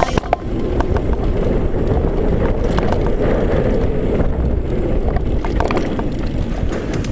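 Wind rushing over the action-camera microphone together with the tyre and trail rumble of a mountain bike descending dirt singletrack, with a few short clatters from bumps.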